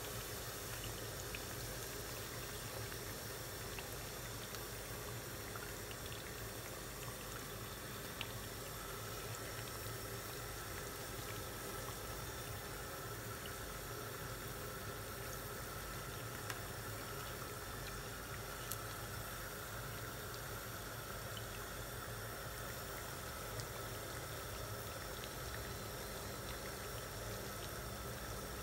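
Yeast donuts deep-frying in hot oil in a frying pan: the oil sizzling steadily, with a few small pops.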